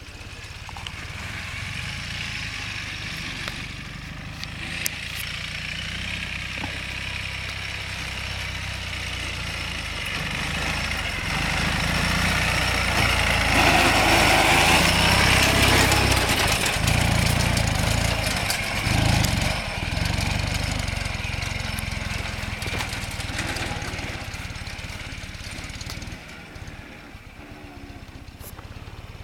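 Ural sidecar motorcycle's flat-twin engine running, growing louder toward the middle and then fading away, with a sudden drop near the end.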